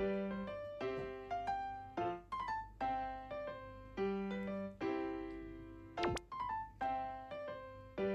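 Background music: a light keyboard tune with notes struck in a regular rhythm, with a short sharp click about six seconds in.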